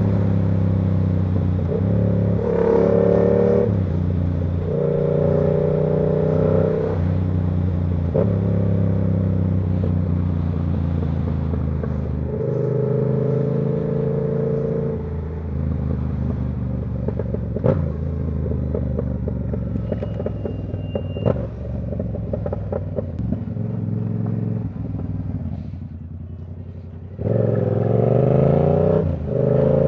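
Yamaha R7's 689 cc parallel-twin engine through a Ko Lightning aftermarket exhaust, riding with repeated pulls of acceleration that rise in pitch and ease off in between. It drops low and quiet around two-thirds of the way through, then pulls hard again near the end. A few sharp knocks come in the middle.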